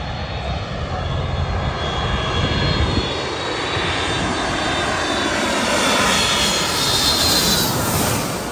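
Delta twin-engine jet airliner on final approach, its engines growing louder as it comes in low and passes directly overhead near the end, with a high whine that drops slightly in pitch as it goes by.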